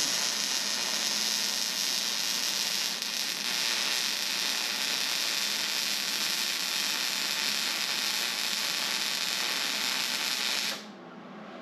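Arc of a 110-volt wire-feed welder crackling steadily through one continuous bead of about eleven seconds, starting and cutting off abruptly. The bead is run at a slowed push rate to make up for the small machine's lack of heat.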